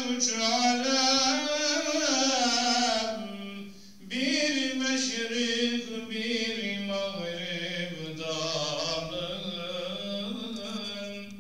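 A man's solo, unaccompanied religious chant in the Turkish mevlid (mevlüt) style. Long held notes wind up and down in melismatic runs, sung in two long phrases with a short breath about four seconds in.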